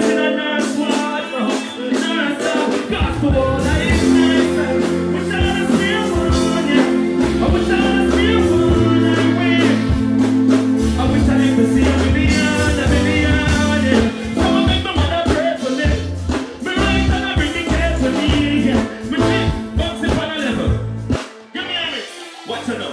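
Live stage music through a PA: a vocalist singing into a microphone over band backing. A deep bass line comes in a few seconds in and drops out near the end.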